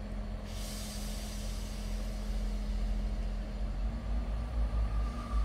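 Two South Western Railway Class 159 diesel multiple units approaching, a low engine rumble growing slowly louder, with a faint high squeal near the end.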